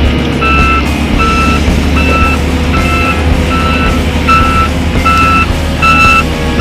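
PistenBully 200 snow groomer's reversing alarm beeping steadily, one beep about every 0.8 s, starting about half a second in, over the steady running of its diesel engine: the machine is backing up.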